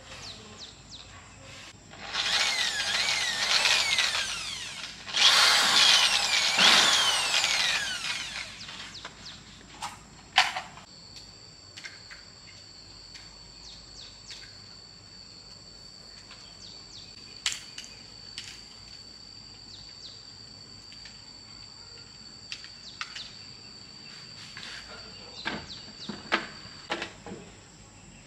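Power tool, like an electric drill, run in two bursts of about three seconds each, its pitch sweeping up and down, followed by scattered clicks and knocks of tools and parts being handled.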